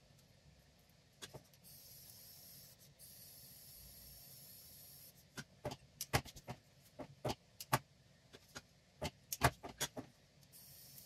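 Small hand snips cutting stray plastic filament strands off a 3D-pen model: about a dozen sharp clicks of the blades closing over roughly five seconds. A faint steady high hiss runs before the snipping and comes back near the end.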